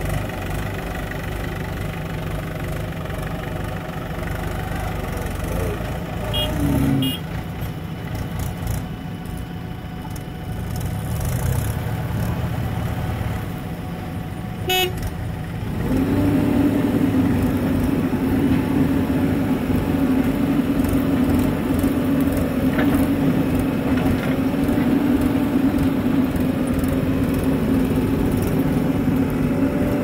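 Diesel engines running steadily: first a Mahindra 475 DI tractor's engine at a low idle rumble, then, after a brief click about halfway, a JCB 3DX backhoe loader's engine running louder at higher revs with a steady drone.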